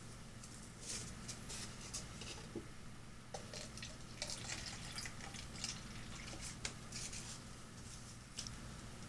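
Water being poured onto potted pepper plants, splashing and dripping in short irregular spurts.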